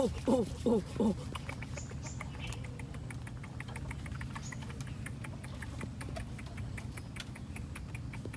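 A few short hooting calls, each falling in pitch, in the first second. Then faint scattered clicks and rustling over a low steady hum, as a baby monkey climbs among bamboo stems.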